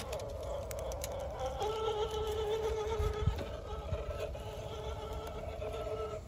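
Electric motor and gear whine of an RC rock crawler creeping over tree roots: a steady high whine that shifts pitch about a second and a half in, with a few light knocks as the tyres meet the roots.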